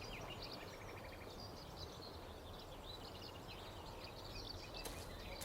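Countryside birdsong: several small birds chirping and trilling over faint steady background noise.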